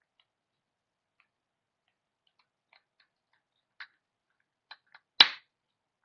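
Small plastic clicks and taps from handling a Toyota key fob, ending in one sharp, loud snap about five seconds in.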